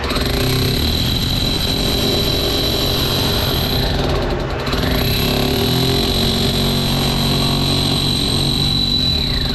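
Electric rotary hammer running steadily, with a constant high motor whine, as it bores a 1-1/4-inch hole through a hollow concrete block wall. It changes briefly about halfway and stops at the end.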